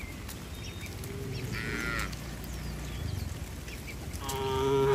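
Cattle mooing: a short, higher-pitched moo about a second and a half in, then a long, loud, low moo near the end.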